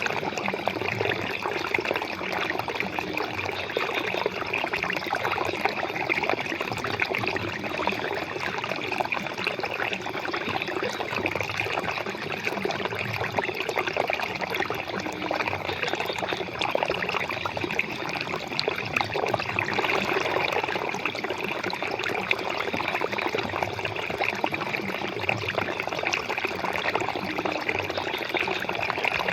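Flowing water running steadily, a continuous splashing rush that does not change.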